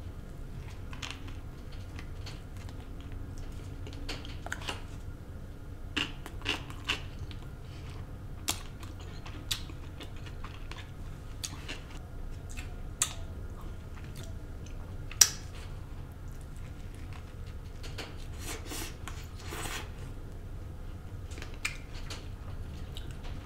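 Biting into and chewing a loaded bacon cheeseburger, with scattered sharp clicks and crunches, the loudest about fifteen seconds in, over a steady low hum.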